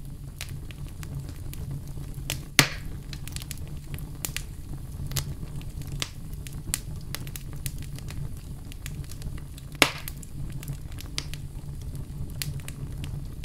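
Irregular crackles and pops over a steady low rumble, with two louder sharp pops, one about two and a half seconds in and one near ten seconds in.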